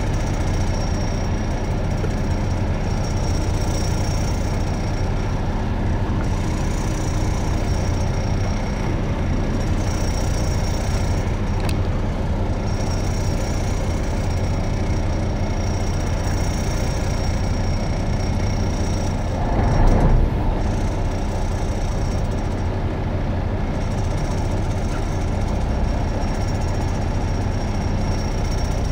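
Fishing boat's engine running steadily, a low hum. A brief louder rush of noise comes about twenty seconds in.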